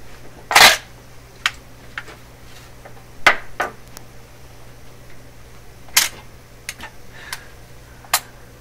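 Record changer cycling: a record drops onto the platter with a loud thump about half a second in, followed by scattered, irregular clicks from the changer mechanism and tonearm.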